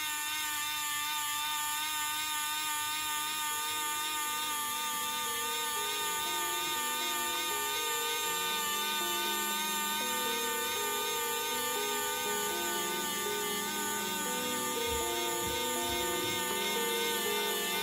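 3D pen's small feed motor whirring steadily as it pushes out filament: a continuous high-pitched whine.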